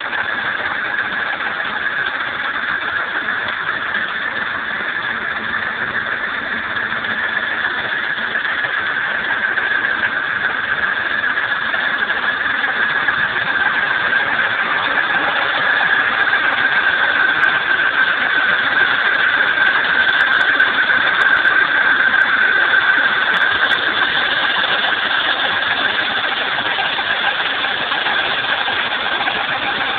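BMW E34 535i's M30B35 straight-six running cold, with a steady mechanical noise over the engine sound that grows a little louder through the middle. Going by where the noise comes from, the owner takes it for the timing chain; it is a cold-engine noise that goes away once the engine is hot.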